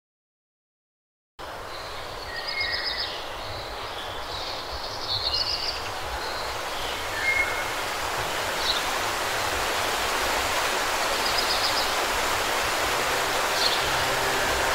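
Outdoor ambience: a steady rushing noise that fades in after about a second and a half of silence and slowly grows louder, with scattered short high chirps.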